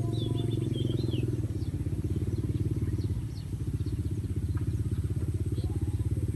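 A small engine running steadily, a fast, even low pulsing with no change in speed, with a short high chirping call about a second in.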